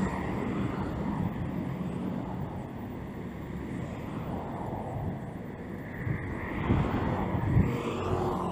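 Road traffic heard from a moving bicycle: a steady rumble of car engines and tyres as cars pass on the road, with louder low gusts of wind on the microphone near the end.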